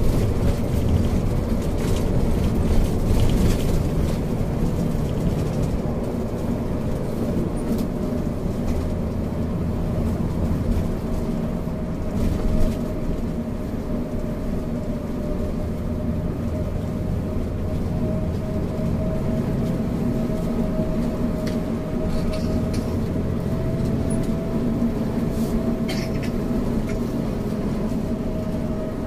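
Moving bus heard from inside the cabin: a steady low engine and road rumble with a thin, steady whine above it, and a few light rattles.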